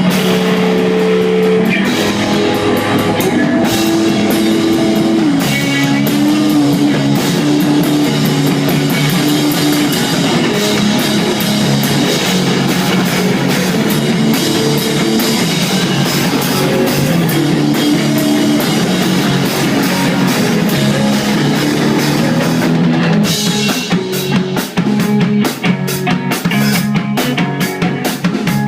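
Rock band playing live, with guitar over a full drum kit, loud and dense. About 23 seconds in, the music turns to choppy, stop-start hits.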